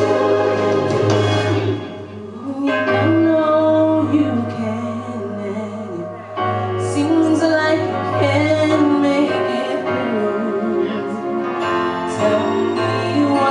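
A woman singing a gospel song live into a microphone over instrumental accompaniment.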